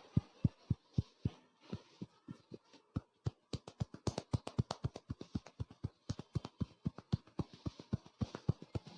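A barber's hands tapping rapidly and rhythmically during a head massage: a steady train of dull thuds, several a second, with a short pause about two and a half seconds in, after which the tapping picks up speed.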